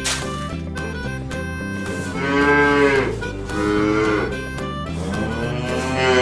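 Cow mooing three long times, starting about two seconds in, over light background music.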